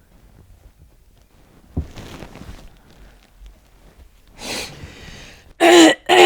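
A person's voice without words: a breath in about four seconds in, then two short, loud vocal sounds near the end, the second falling in pitch. A small knock comes earlier.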